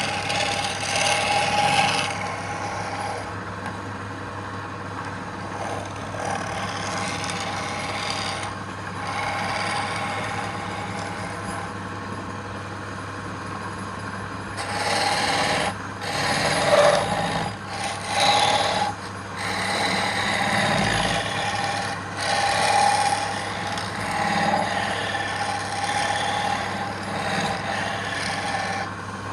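Wood lathe running with a steady hum while a turning tool cuts the spinning wood in repeated passes, the scraping sound coming and going every few seconds.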